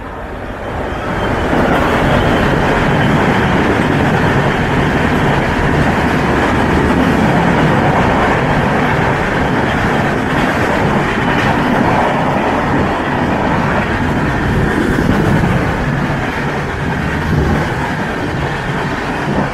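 Express passenger train hauled by a WAP-7 electric locomotive passing through at speed: a loud, steady rush of steel wheels on rail that builds over the first two seconds as the locomotive reaches the microphone, then holds while the coaches go by.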